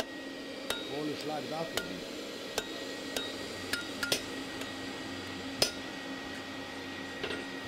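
Blacksmith's hammer striking iron on an anvil: about seven sharp, irregularly spaced blows, each with a short metallic ring.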